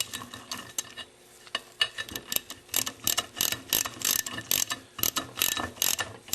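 Socket ratchet clicking in short runs as it snugs down a bolt on a Meyer E-60 snow plow pump. The clicks start about a second and a half in and come a few per second.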